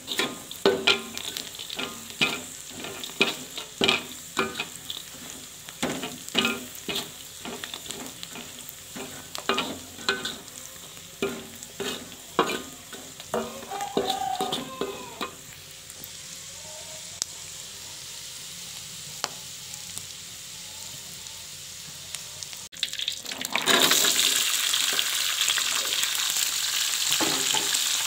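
A spatula scrapes and knocks against a wok while peanuts and small dried fish are stir-fried, over a light frying hiss; after about fifteen seconds the strokes stop and only a quieter hiss remains. About 24 seconds in, a loud, steady sizzle starts as sliced pieces hit the hot oil.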